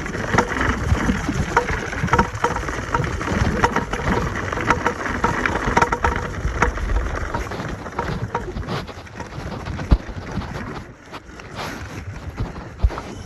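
Wind buffeting the microphone over knocks and rattles from an eX-Trail1000 off-road electric scooter riding fast over rough ground. It quietens about eleven seconds in as the ride eases.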